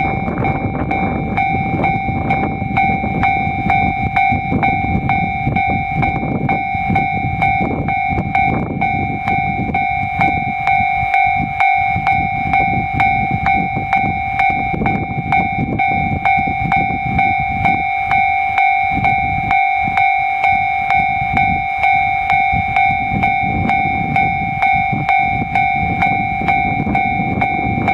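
Japanese railroad crossing's electronic warning bell ringing over and over, about one and a half strikes a second. Under it a train runs past with a low rumble that dies away about ten seconds in and returns near the end.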